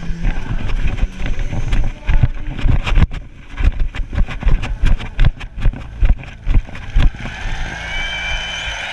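Rumbling wind and handling noise on a camera microphone being carried on the move, with irregular heavy thumps for about seven seconds, then a steadier hiss.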